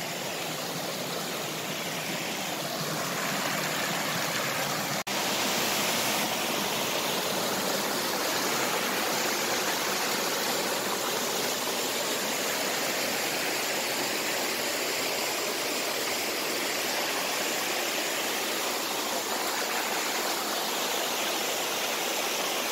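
Mountain stream rushing steadily over boulders and small cascades. A brief break comes about five seconds in, after which the rushing is louder.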